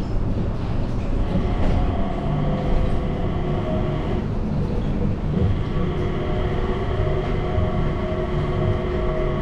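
Changi Airport Skytrain, a driverless rubber-tyred people mover, running along its guideway, heard from inside the car: a steady low rumble with a motor whine of several held tones on top. The higher whine briefly fades about four seconds in, then returns.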